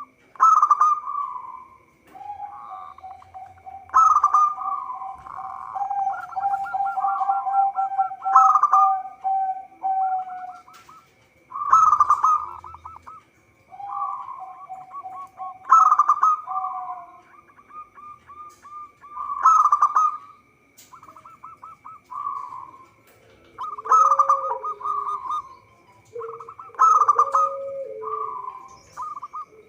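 Zebra dove (perkutut) singing its staccato cooing phrase over and over, a new phrase starting about every four seconds. A lower, longer rattling trill runs beneath it twice, and a steady thin high whine continues throughout.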